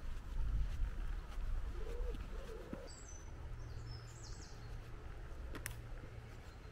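Birds calling: two short, low cooing notes about two seconds in, followed by a brief burst of high chirps. A low rumble sits underneath at the start, a steady low hum comes in later, and there is a single sharp click near the end.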